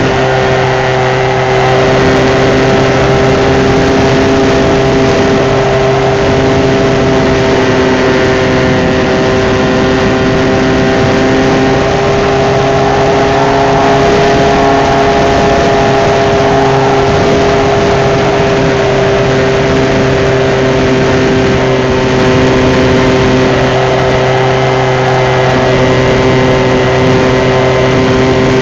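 RC model Cessna 182's motor and propeller running at a steady pitch in flight, heard close up from a camera mounted on the airplane.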